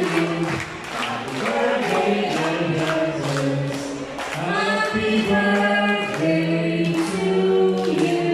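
Music with sung vocals over a steady beat.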